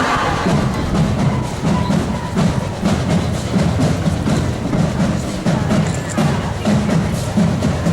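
High school marching band drumline playing a street cadence: drums struck in a fast, steady rhythm with crisp stick clicks.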